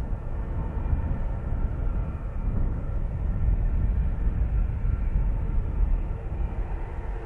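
Airbus A321 jet engines running: a steady low rumble with faint whining tones above it.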